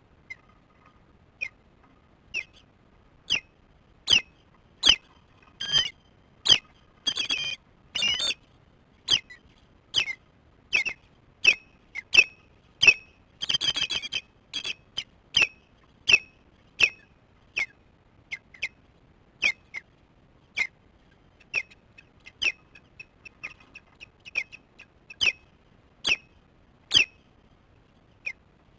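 Osprey alarm calls at an intruder near the nest: a long series of short, high calls a little faster than one a second, broken twice by runs of rapid calls, about six seconds in and again near the middle.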